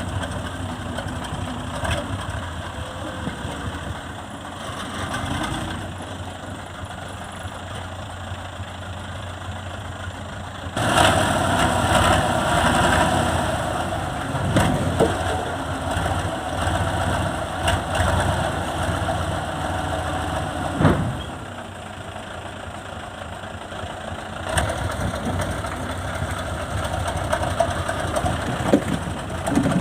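Heavy machine engine running at the logging site. It grows clearly louder about a third of the way in for roughly ten seconds, then drops back to a lower, steady running, with a few sharp knocks along the way.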